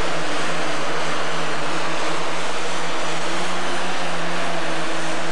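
Pro stock pulling tractor's diesel engine running hard under load as it pulls the sled, a loud, steady engine sound at an even pitch.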